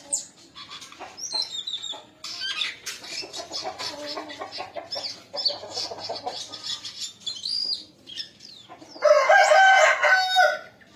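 Bird singing a fast, varied run of chirps, trills and whistles, with a louder, longer call of several stacked tones about nine seconds in.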